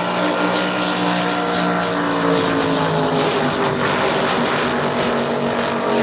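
Two drag boats' engines running flat out down the course. The engine note slowly falls in pitch.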